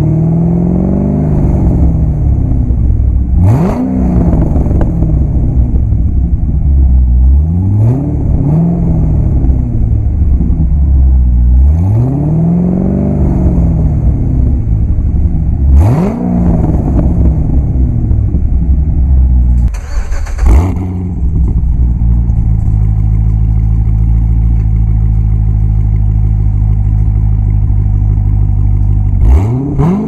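2007 Chevrolet Corvette C6 Z06's 7.0-litre LS7 V8, heard at its quad exhaust tips, revved in quick blips about every four seconds, each one rising sharply and falling back to idle. After a brief burst of noise about two-thirds in, it settles to a steady idle, then revs again near the end.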